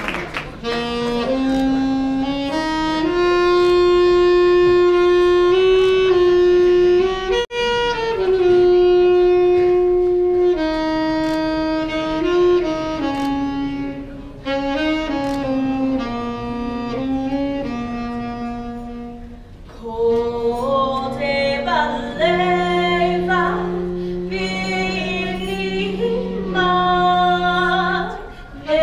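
A woman singing a national anthem in slow, long held notes that step up and down. From about 22 seconds in a lower part holds steady notes beneath her melody.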